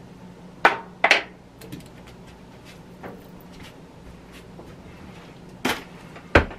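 A few sharp knocks of kitchen items, such as seasoning containers, being handled and set down: two close together about a second in and two more near the end, the last the loudest. A faint steady hum runs underneath.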